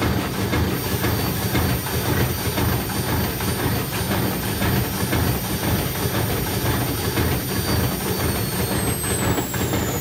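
Washing machine motor mounted on a Candy tumble dryer, driving the drum with a small load: a steady rumble and rattle with a thin high motor whine that starts falling in pitch near the end. The dryer's bearings are struggling against the load's resistance.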